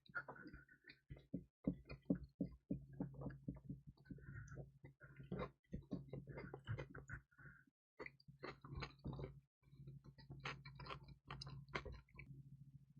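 Close-miked chewing of pizza: irregular crunchy, wet mouth clicks and crackles, with a short pause about two thirds of the way through, over a low steady hum.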